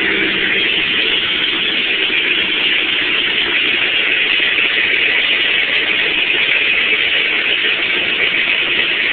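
Car engine running steadily with a deep rumble, exhausting through only a 4-into-1 header with no muffler, which gives it its loud, thick note.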